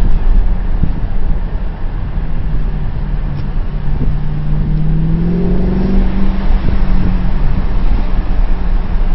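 Audi S8 with a custom exhaust, heard from inside the cabin while driving: a loud, deep exhaust rumble. About four to six seconds in, the engine note rises in pitch as the car accelerates, then holds steady.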